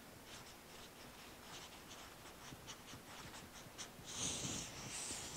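Felt-tip marker writing on flip-chart paper: faint short scratchy strokes as letters are written, with a longer, louder scrape about four seconds in.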